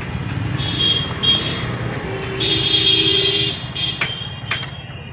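Street traffic: a steady engine rumble, with a vehicle horn sounding for about a second and a half around two seconds in. Two sharp knocks come near the end.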